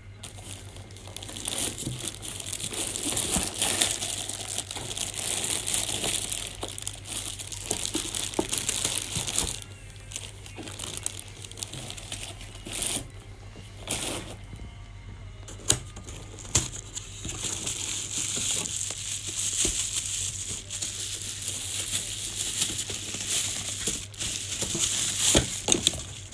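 Plastic wrapping crinkling and cardboard packaging rustling as hands unpack a boxed radio, in two long stretches with a quieter middle broken by a few sharp clicks and knocks.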